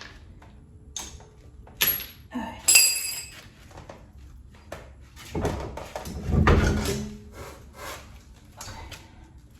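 Metal hand tools being handled during brake work: a sharp knock, then a metal clank that rings briefly, then a longer scraping, shuffling handling noise about five seconds in.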